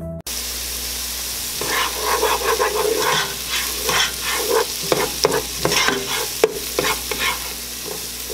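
Diced onions sizzling in olive oil in a soup pot, softening toward translucent. From about a second and a half in, a plastic spoon scrapes and stirs through them in repeated strokes, with a few light knocks against the pot.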